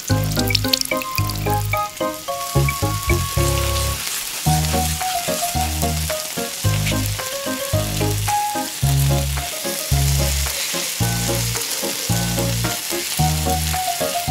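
Beaten egg sizzling as it fries in a miniature steel pan, the hiss building about two seconds in. Background music with a steady bass beat plays throughout.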